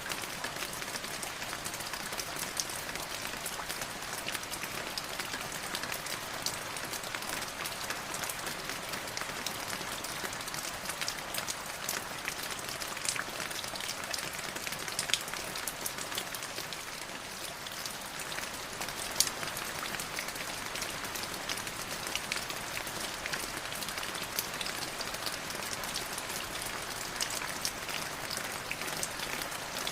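Light drizzle falling steadily, a dense patter of small raindrops striking a surface, with an occasional louder single drop.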